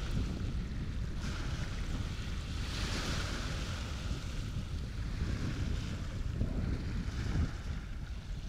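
Wind buffeting the microphone over the wash of waves, with a louder rush of hiss about three seconds in.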